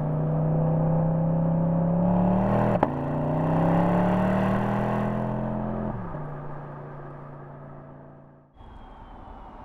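Porsche Panamera 4 E-Hybrid's twin-turbo V6 pulling under acceleration, its pitch rising and dropping sharply at gear upshifts about three and six seconds in, then settling lower and fading. An abrupt change near the end leaves quieter road noise with a faint high whine.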